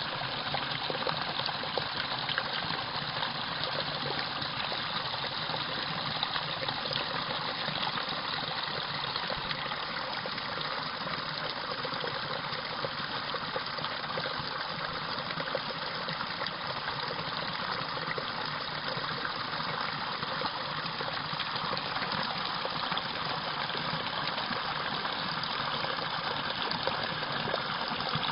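Water rushing steadily, a continuous gushing noise with small scattered ticks.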